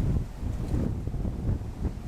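Wind buffeting the microphone outdoors, an irregular gusty low rumble that swells and drops every fraction of a second.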